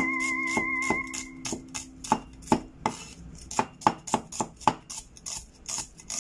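A cleaver chopping shallots on a wooden cutting board, a steady run of knocks about three a second. Soft ukulele background music fades out in the first second.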